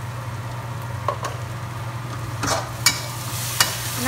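Aromatics sizzling in hot oil in a wok while a metal spatula stirs them, with several sharp scrapes and clacks of the spatula against the pan.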